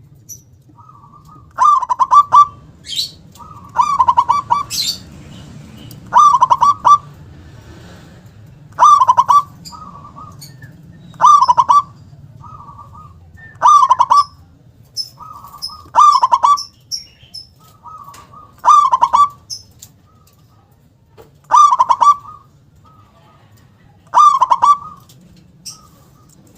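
Zebra dove (perkutut) singing, repeating its cooing phrase about every two and a half seconds, ten times: a soft opening note, then a loud, rolling 'kung' coo.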